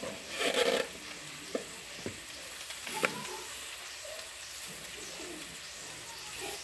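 Sliced serrano chiles, onion and garlic frying in butter in a stainless steel saucepan, sizzling steadily. A short low pitched sound comes about half a second in, and there are a few sharp clicks of the metal spoon against the pan, the loudest about three seconds in.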